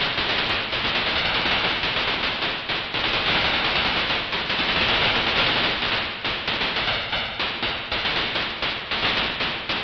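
Synthetic sci-fi electronic weapon firing in rapid, continuous bursts, a dense hissing stream of energy shots like an automatic blaster.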